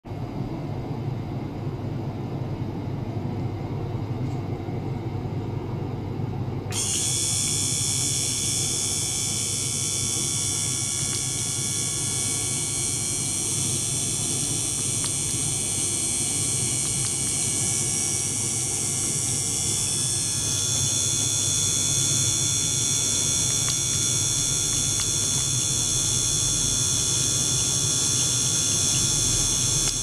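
A small DC water pump runs steadily, circulating water through tubing with a low rumbling noise. About seven seconds in, several steady high-pitched tones join, and their pitches shift slightly at about twenty seconds.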